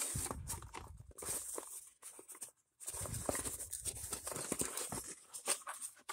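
Cardboard box being unpacked by hand: a printed card sleeve slid off and the flaps pulled open, with scraping, rustling and small knocks, and a short break about two and a half seconds in.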